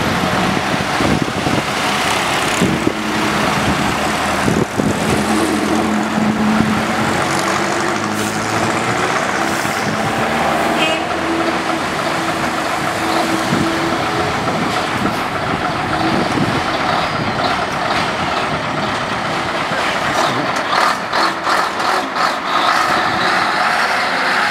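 AEC Mandator V8 lorry's V8 diesel engine pulling away under load with a heavy low-loader trailer, its engine note rising and falling as it works up the road. Near the end it passes close, and the exhaust beat comes through as a rapid, even pulsing.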